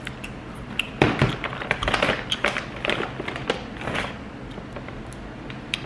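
Handling noise close to the microphone: a quick run of taps, clicks and knocks with a few dull thuds, starting about a second in and dying away near the end.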